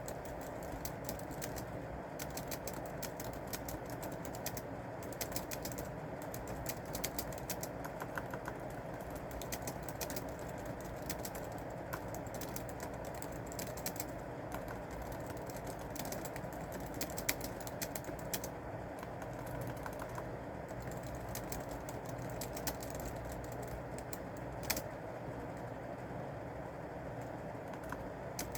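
Typing on a computer keyboard: runs of quick keystrokes broken by short pauses, with an occasional louder single key strike, over a steady low background hum.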